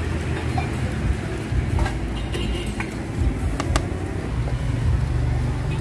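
Steady low rumble of street traffic, with a few sharp clicks and clinks of utensils and containers at a street-food stall.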